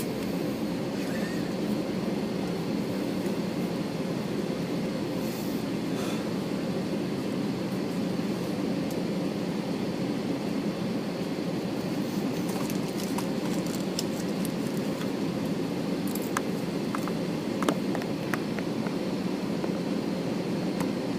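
Steady cabin noise inside an Airbus A321 on the ground, its engines at idle while it waits for takeoff. There is a faint high whine and a few small clicks in the second half.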